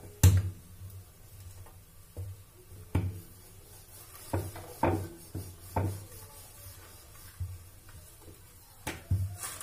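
Wooden rolling pin rolling out paratha dough on a round rolling board, with a series of irregular knocks as the pin is set down and shifted on the board.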